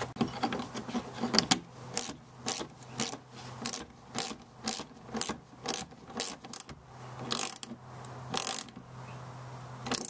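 Ratchet wrench clicking in short strokes, about two a second, then a few more strokes after a pause, as small bolts are snugged into a plastic hitch cover.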